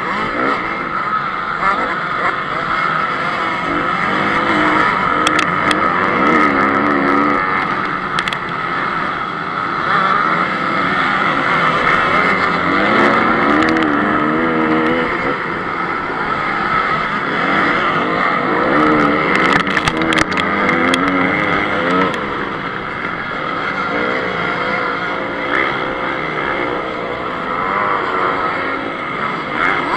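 Honda CRF 250 motocross bike's single-cylinder four-stroke engine under race throttle, its pitch rising and falling again and again as the rider works the throttle and gears, with a few sharp clicks.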